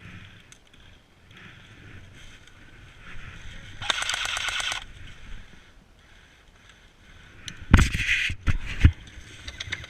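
An airsoft gun firing a rapid full-auto burst of just under a second, about four seconds in. Near the end come a few loud thumps.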